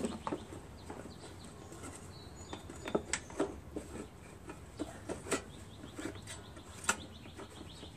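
Scattered light knocks and clicks of a lawn mower engine's shroud and recoil starter housing being set and seated by hand on the engine, with faint birds chirping in the background.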